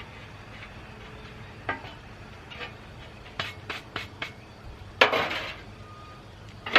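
Metal parts and tools being handled: scattered clinks and knocks, a quick run of four or five light taps in the middle and one louder clattering knock about five seconds in.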